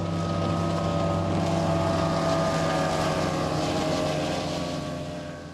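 Bass boat's outboard motor running at high speed, a steady engine note whose pitch sinks slightly as it passes, fading out near the end.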